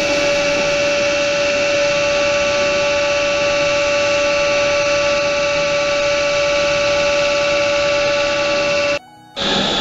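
CNC six-sided panel drilling machine running with a steady whine. The whine cuts off suddenly about nine seconds in and, after a brief dip, a higher-pitched machine sound starts.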